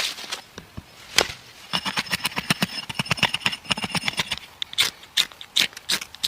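Hand-tool work sounds: a few separate sharp knocks, and in the middle a quick run of strokes, about eight a second, with a metallic ring.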